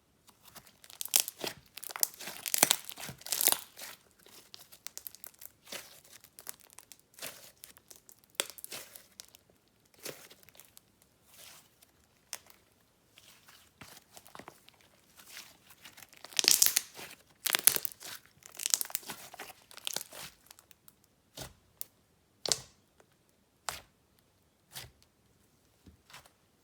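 Light green jelly slime with kiwi Fimo clay slices being squished and stretched by hand, giving wet crackling and popping in two dense spells, then a few separate pops near the end.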